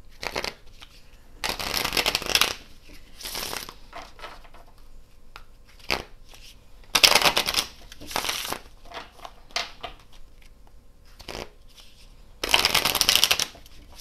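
A deck of tarot cards being shuffled by hand, in about six short bursts of card noise with brief pauses between, the longest about a second long near the start and near the end.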